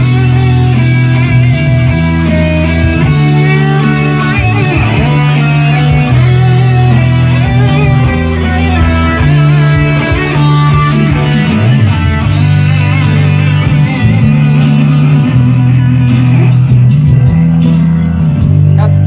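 Electric guitar playing a rock melody over a full backing track with held bass notes that change every second or two; the music starts and stops abruptly.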